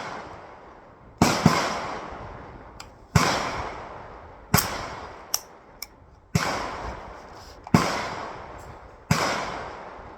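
Rifle gunshots: about six sharp reports, roughly a second and a half apart, each followed by a long echoing tail.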